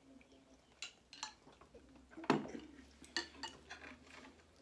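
Metal cutlery clinking and scraping against ceramic plates at a meal, a handful of short sharp clicks, with a heavier knock a little over two seconds in.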